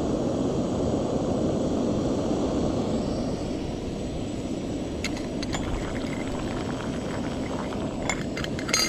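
Canister gas camping stove burning steadily under a lidded pot of water, a constant hiss, with steam coming off the pot. A few light clicks and taps come in the second half, a short cluster of them just before the end.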